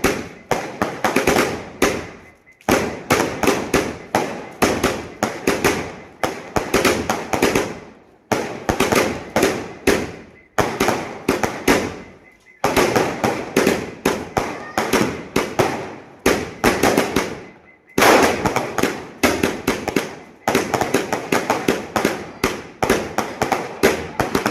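Multicolour skyshot fireworks cake with crackling effects firing in rapid succession: a dense run of launch pops and bursts with crackle, breaking off briefly every few seconds before the next run of shots.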